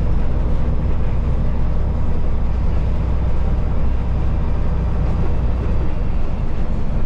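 Peterbilt truck's diesel engine pulling steadily, a low drone mixed with road noise from driving on a dirt road, heard inside the cab. The low drone eases a little about six seconds in.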